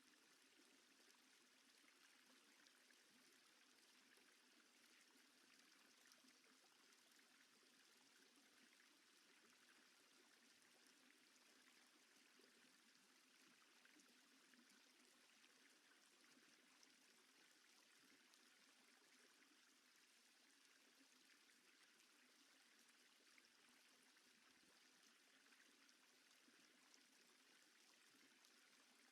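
Near silence: only a faint, steady hiss with no distinct sounds.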